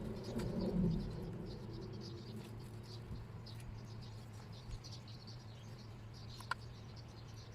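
Faint, rapid chirping like insects, repeating over a steady low hum, with a few soft clicks.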